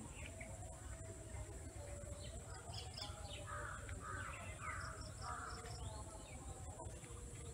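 Crows cawing, about four caws in a row midway through, with small birds chirping now and then.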